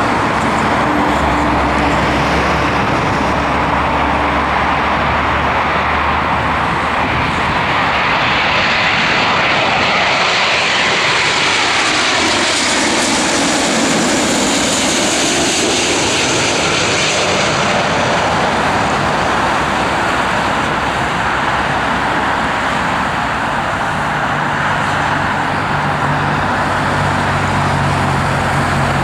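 Boeing 777-200 airliner's twin Rolls-Royce Trent 800 jet engines passing on approach to land. The jet noise swells to a peak with a sweeping, phasing sound about halfway through, then eases off.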